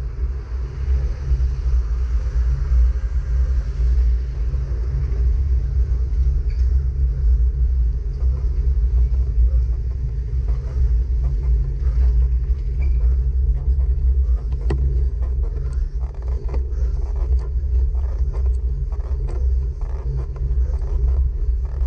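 Steady low rumble of wind and road vibration on the microphone of a road bike riding uphill, with scattered light clicks and rattles from about six seconds in.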